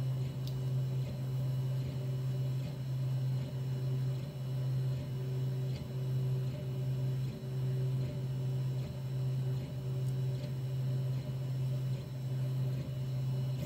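3D4040N 3D printer running: a steady low motor hum with a few fainter higher tones, dipping briefly every second or so as the moves change, with faint ticks.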